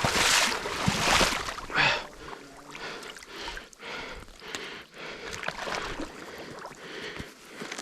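Water splashing and sloshing as a person wades through shallow marsh water and sinking mud, with loud splashes in the first two seconds, then softer sloshes at a walking pace.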